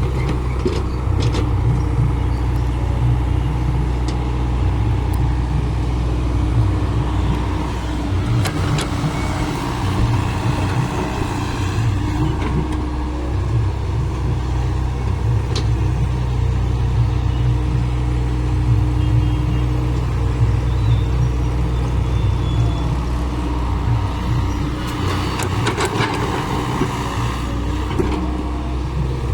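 A heavy machine's engine running steadily at a constant speed, with a few sharp knocks or clanks about a third of the way in and again near the end.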